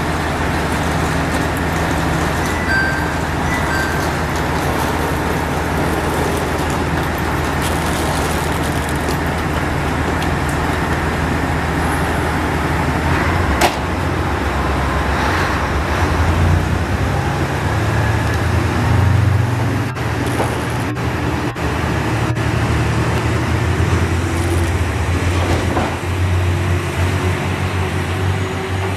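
Diesel engines of a JR West KiHa 189 series limited express railcar running with a steady low hum at the platform. A sharp click comes about fourteen seconds in, then the engines grow louder and rise in pitch as the train pulls away.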